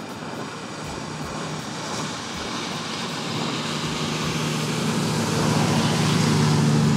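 A fast motorboat's engines running at speed, a steady low hum with a rushing wash over it that grows louder as the boat closes in, loudest near the end as it passes close by.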